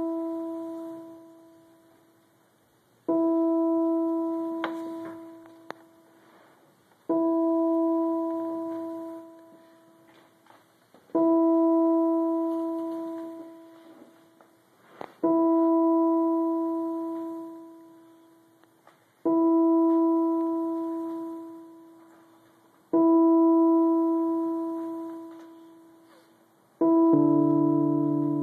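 Electronic keyboard playing the same single note about every four seconds, each note ringing out and fading before the next; near the end lower notes join in a fuller chord. A couple of faint sharp knocks sound between notes.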